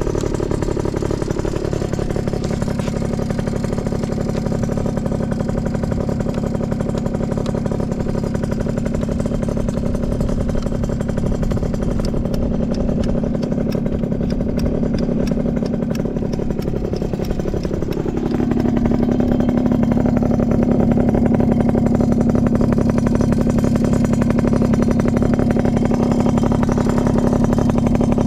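Yamaha Champ RS scooter's two-stroke single with an aftermarket expansion chamber, running steadily near idle. About two-thirds of the way through, the engine speed steps up and holds a little higher and louder.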